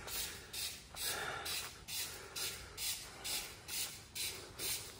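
Footsteps on dry, sandy ground at a steady walking pace, about two steps a second, each step a short scuff.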